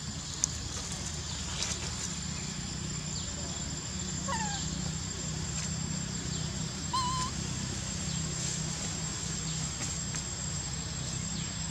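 Outdoor ambience: a steady high-pitched whine over a low rumble, with two short chirping animal calls. The first, about four seconds in, falls in pitch; the second, about seven seconds in, wavers.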